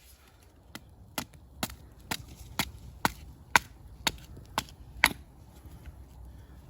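Wood being chopped: about ten quick, sharp strikes at a steady pace of roughly two a second, stopping about five seconds in.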